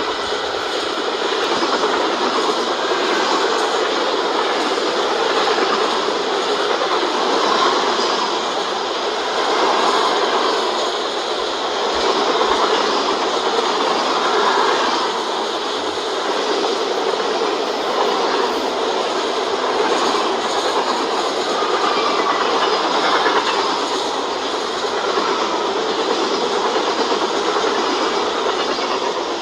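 CSX freight train rolling past, its cars' wheels running on the rails in a steady, continuous rumble that swells and eases a little every few seconds.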